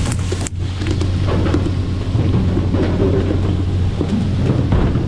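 A boat under way at speed: a steady low engine drone beneath heavy wind on the microphone and the rush of spray off the hull. The sound dips out briefly about half a second in.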